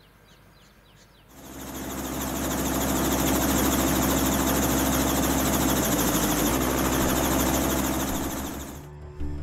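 Robinson R22 helicopter running: a steady piston-engine drone with a fast rotor chop. It rises in about a second in and cuts off shortly before the end.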